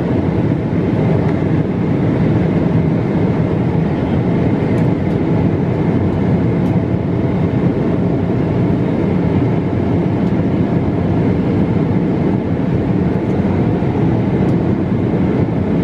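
Airliner cabin noise in flight: the steady drone of the jet engines and air rushing past the fuselage, deep and unchanging.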